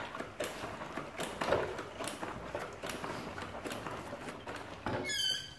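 Irregular clicks and knocks from handling a dirt bike's front fork and wheel, with a short squeak about five seconds in.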